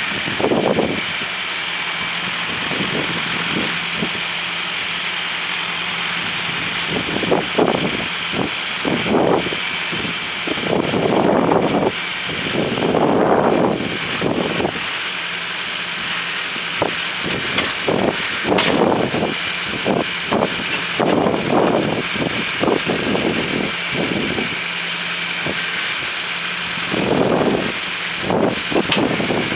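Tractor engine running steadily to power a three-point-hitch backhoe attachment, with repeated louder surges of a fraction of a second to about a second as the backhoe is worked.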